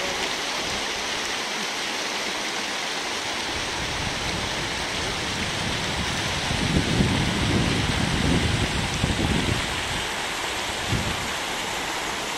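Steady rushing of water flowing over the rims of travertine terrace pools. A stretch of louder low rumbling runs from about six to ten seconds in.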